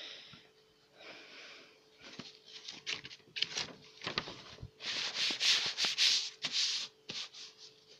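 Handling noise from a phone held close to its microphone: irregular rustling and rubbing with scattered sharp clicks, loudest in a run of rubs about five to six seconds in.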